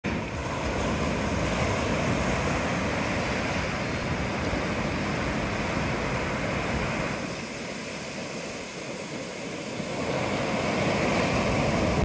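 Ocean surf: waves breaking and washing up the sand in a steady rushing wash that eases for a few seconds in the middle and builds again near the end.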